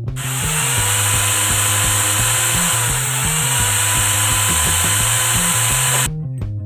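An electric power tool running steadily for about six seconds with a high whine, dipping briefly in pitch midway as it takes load, then cutting off suddenly, over background music with a drum beat.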